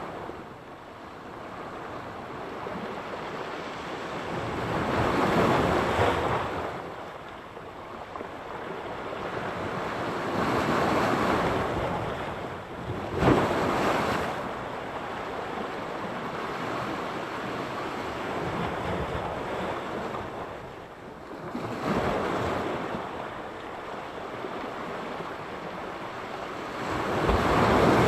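Mediterranean surf: waves breaking on the shore and washing back, swelling every five or six seconds, with one short sharp slap about halfway through.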